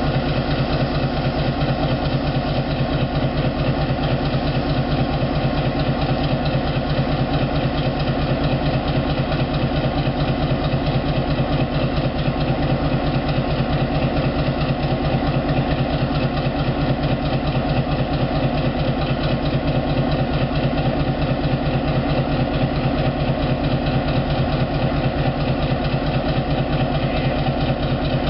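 An engine idling steadily, with a fast, even low throb that does not change.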